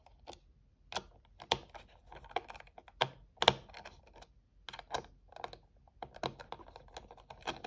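Irregular small clicks and taps of a screwdriver and metal parts as a folding knife is being disassembled, its T8 Torx screws being worked loose. One sharper click stands out about three and a half seconds in.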